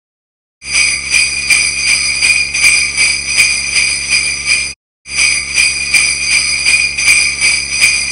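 Sleigh bells shaken in a steady rhythm, in two runs of about four seconds each with a short break between them.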